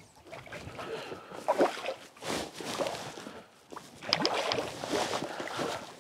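River water splashing and sloshing in irregular bursts as a hooked brook trout thrashes at the surface beside a wading guide's landing net.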